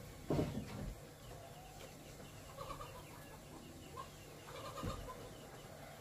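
Two dull thumps on a wooden plank floor, the louder about half a second in and another near five seconds. Chickens cluck softly in between.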